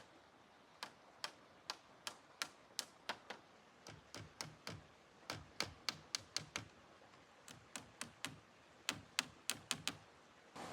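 A series of sharp taps or knocks, about two to four a second, in runs of four to eight with short pauses between, faster in the last couple of seconds.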